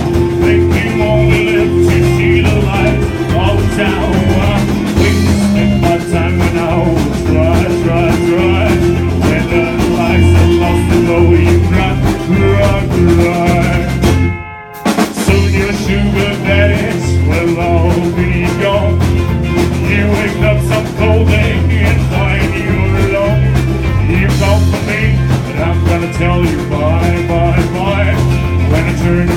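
Live country band playing an instrumental passage on electric guitar, bass and drums. The music drops out briefly about halfway through, then picks up again.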